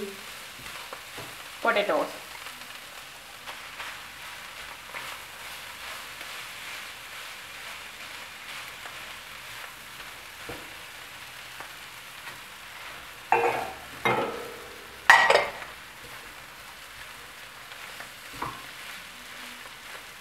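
A fish filling sizzling in a non-stick frying pan while it is stirred with a silicone spatula and mashed potato is mixed in. A cluster of three louder scrapes and knocks comes about two-thirds of the way through, with a smaller one near the end.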